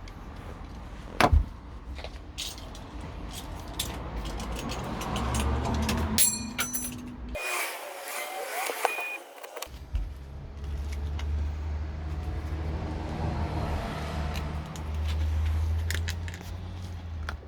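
A blade cutting into a cured silicone rubber mould and the mould being worked apart by hand: scrapes, rubs and scattered small clicks, with one sharp click about a second in, over a low steady rumble.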